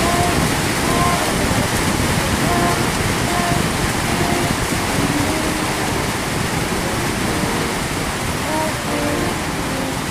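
Heavy tropical rain pouring down in a loud, steady hiss, with faint voices showing through it now and then.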